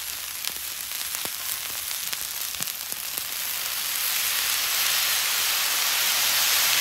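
Fried rice sizzling on a hot flat-top griddle, with a few sharp ticks early on. From about halfway through, the sizzle grows louder and stronger as soy sauce is poured onto the hot rice.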